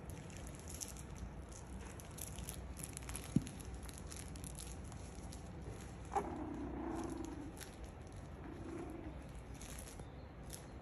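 Six-week-old miniature schnauzer puppies at play: scattered light ticks and scuffles, a single sharp knock about three seconds in, and a short low sound a little after the middle.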